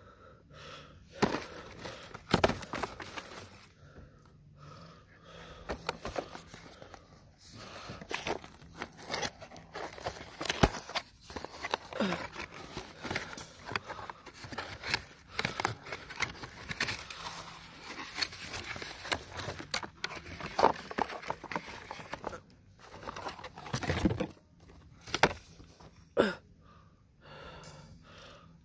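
Cardboard box being opened and handled: irregular rustling and scraping with sharp knocks and crackles, as a rubber junior football is taken out.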